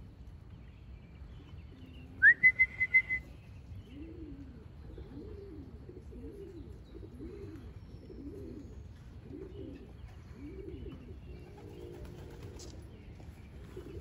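Pigeons cooing: a series of low, rising-and-falling coos, roughly one every second. About two seconds in comes a quick run of loud, high-pitched beeps, all at the same pitch.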